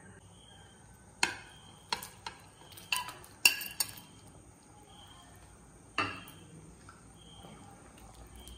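A metal spoon knocking and scraping against a plate and the rim of a cooking pan while scraping curry masala into it: a string of sharp clinks, the loudest about three and a half seconds in.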